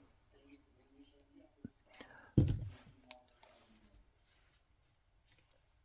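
Paper and card stock being handled: faint rustles and light clicks, with one dull thump about two and a half seconds in.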